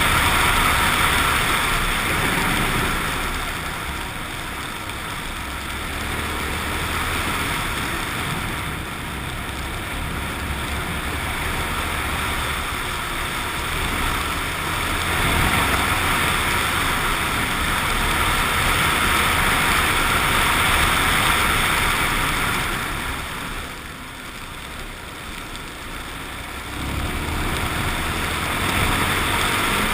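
Suzuki XF650 Freewind's single-cylinder engine running under way, mixed with steady wind and road rush on the camera. The engine note drops for a few seconds about two-thirds of the way through, then picks up again.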